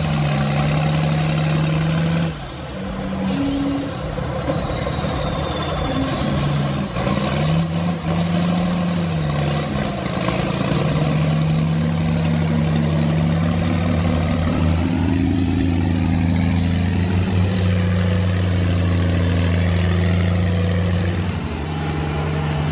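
Heavy truck engine running hard under load, with a steady hum that shifts pitch now and then and drops off briefly twice.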